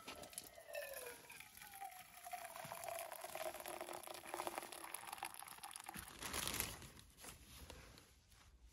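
Water poured from a kettle into a metal camp mug, with a tone that slides down and then levels off as it pours, stopping about seven seconds in.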